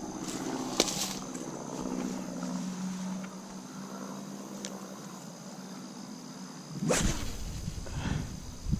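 Rustling and footsteps through tall grass and brush over a steady high drone of insects, with a faint low hum underneath. About seven seconds in comes a louder sudden rustle and thump.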